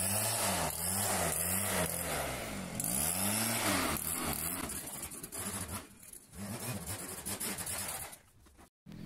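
Backpack leaf blower running: a loud rush of air over a small petrol engine whose pitch keeps rising and falling with the throttle. It falls quieter about six seconds in and cuts off shortly before the end.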